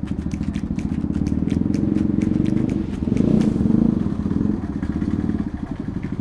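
Bajaj Pulsar NS200's single-cylinder engine through a full-system aftermarket exhaust, running at low revs with a rapid, even pulsing beat. It swells louder for a second or so about three seconds in.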